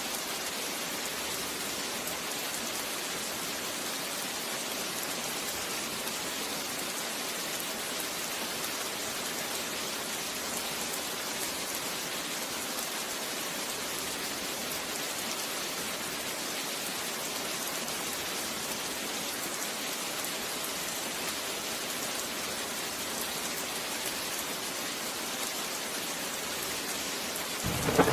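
Steady rain falling with an even hiss. A thunderclap breaks in near the very end.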